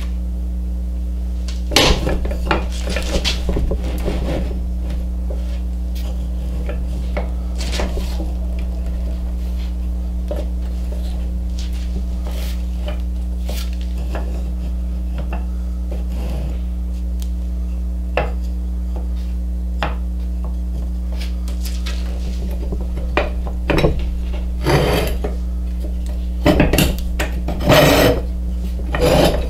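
Small wooden end-grain blocks clacking and knocking against each other and against metal pipe clamps as they are pushed into place by hand, over a steady low hum. The clatter is heaviest in several clusters near the end.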